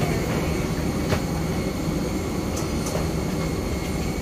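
Steady drone of airliner machinery at the boarding door, with a thin steady high whine and a few faint clicks.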